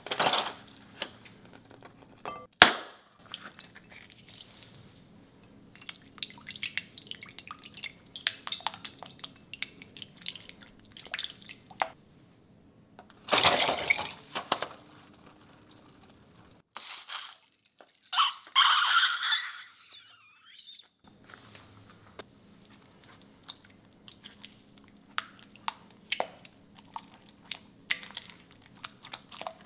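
Slime-making sounds in a glass bowl: glycerin and then borax-water activator squeezed out of balloons into clear glue in wet spurts, with one sharp snap a few seconds in. Near the end a silicone spatula stirs the thickening glue with small sticky clicks.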